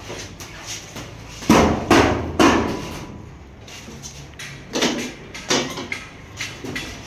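Hammer blows: three loud strikes in quick succession about one and a half seconds in, then two lighter ones about five seconds in.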